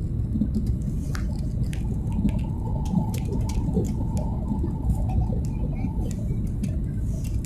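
Boeing 737 MAX 8 cabin noise on approach: a steady low rumble of the CFM LEAP-1B engines and airflow, with a faint hum from about a second and a half in until about six seconds. Scattered light clicks sit on top.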